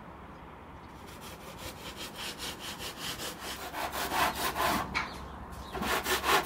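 Rhythmic rasping strokes, like a hand saw or a tool scraping back and forth, at about four a second. They stop briefly near the end and then resume louder.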